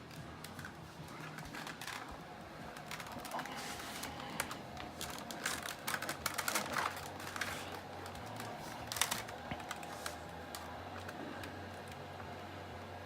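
Hard plastic parts of a pachinko machine being handled and shifted: scattered clicks, taps and light knocks, busiest around the middle, with one sharper knock about nine seconds in.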